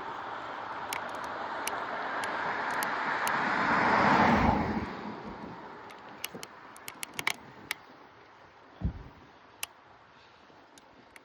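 A car passes by, its road noise swelling to a peak about four seconds in and then fading away. Afterwards there are a few sharp clicks and a single low thump.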